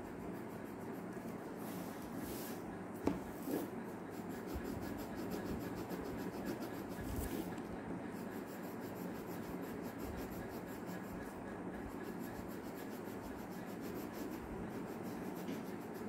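Colour pencil shading on paper: a steady rubbing of the pencil lead across the sheet, with two short knocks about three seconds in.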